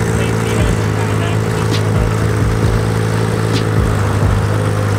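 A car engine running steadily at low revs, its pitch and loudness holding even throughout.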